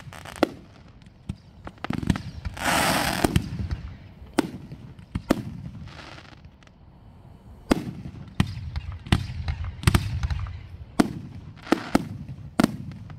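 Aerial fireworks going off: a string of sharp booms at uneven spacing, coming about every two-thirds of a second in the second half. There is about a second of dense hiss around three seconds in.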